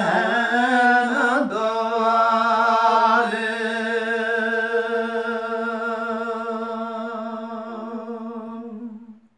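A man's unaccompanied voice sings a line of a Gojri bait (folk verse). A short wavering phrase turns into one long steady held note of about eight seconds, which fades and stops near the end.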